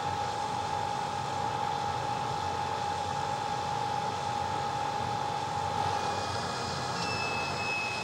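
BGA rework station's hot-air heater blowing steadily on a TV main-board processor chip, a constant rush of air with a steady whine through it, as the chip's cracked solder balls are reflowed; a second faint high tone joins near the end.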